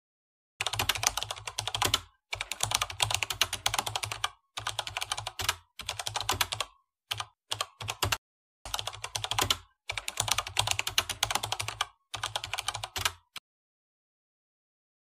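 Keyboard typing: rapid clicking keystrokes in bursts of one to two seconds with short breaks between them, and a few brief clusters of clicks near the middle. The typing stops near the end.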